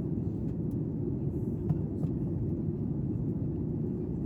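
Steady low rumble of cabin noise inside a Boeing 737-8 MAX in flight: engine and airflow noise heard from a window seat, with a faint tick or two.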